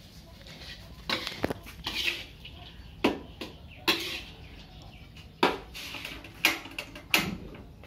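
Metal spatula scraping and knocking against a metal wok while stir-frying rice, a series of sharp clatters about once a second.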